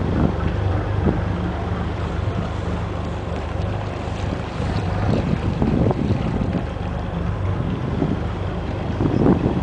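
Waveearl hire cruiser's engine running steadily, a low hum as the boat motors along, with wind buffeting the microphone in gusts that grow stronger near the end.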